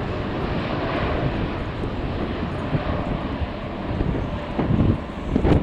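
Jet airliner engines running, a steady rush, with strong wind buffeting the microphone in low gusts that swell twice near the end.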